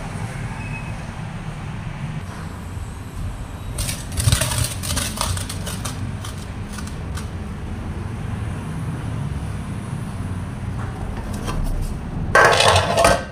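An aluminium lid clatters onto a large aluminium cooking pot near the end, the loudest sound here, over a steady low hum. There is a shorter clatter of handling about four seconds in.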